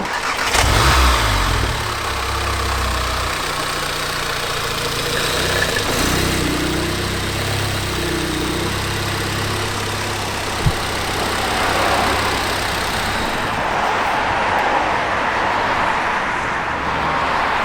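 2014 VW Golf R Mk7's turbocharged 2.0-litre four-cylinder engine, freshly refilled with oil, starting about half a second in with a brief rev, then running steadily at low revs while the car is moved. Its engine sound ends about thirteen seconds in, and there is a single sharp click a little before that.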